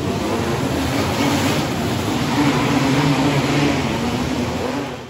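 500cc cage kart engines running at racing speed as the karts circle a dirt oval inside an enclosed arena, a steady engine drone over broad track noise. It fades out at the very end.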